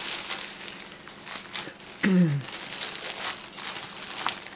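Clear plastic bags and sleeves crinkling and rustling as hands handle and shuffle them, irregular and on and off.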